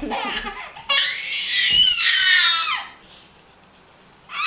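A young child's loud, high-pitched play scream lasting about two seconds and falling in pitch at its end, after a little babble. A second scream starts just at the end.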